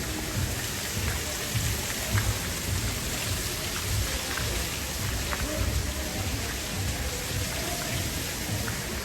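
Steady rain-like hiss with an uneven low rumble underneath and a few faint ticks.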